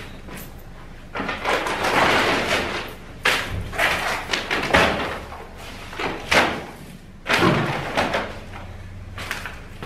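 Heavy paper sacks of plaster being dropped and stacked on a rubble-covered floor: several dull thumps, with paper scraping and grit crunching underfoot between them.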